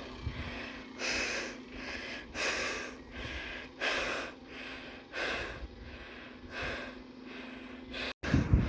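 Heavy breathing close to the microphone, a loud breath roughly every one and a half seconds, over a faint steady hum.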